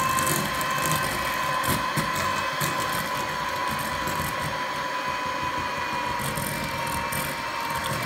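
Electric hand mixer running, its twin beaters working flour into a thick butter-and-egg biscuit dough in a steel bowl. The motor's steady whine sags slightly in pitch as the dough stiffens.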